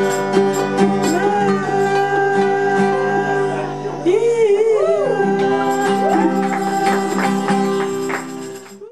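Music with a singing voice over held instrumental notes, fading out and stopping just before the end.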